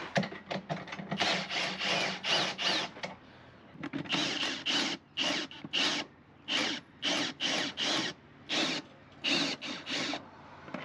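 Cordless drill winding a slide-on camper's jack leg, run in many short bursts of under half a second each, to lower the camper onto the ute tray.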